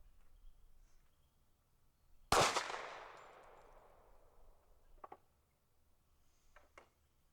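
A single gunshot with a long echoing tail that fades over about two seconds, followed by a few small, faint metallic clinks.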